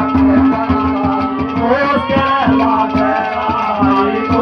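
Haryanvi ragni folk music: a wavering melodic line over a steady held drone, with fast hand-drum strokes throughout.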